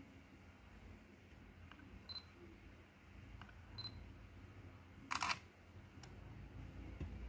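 Canon PowerShot SX430 IS compact camera giving two short high electronic beeps, then its shutter sound about five seconds in, which is the loudest thing heard.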